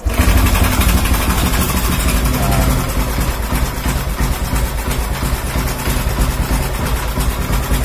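Honda Class 1 EFI four-stroke single-cylinder motorcycle engine comes in suddenly and then idles steadily. The earlier ticking, where the magneto flywheel rubbed against the stator coil's wiring post, is no longer there.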